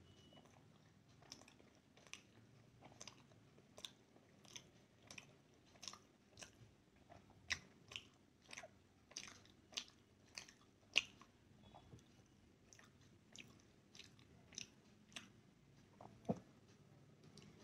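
A person chewing steamed momo dumplings: faint wet mouth clicks and smacks about twice a second, with one louder knock near the end.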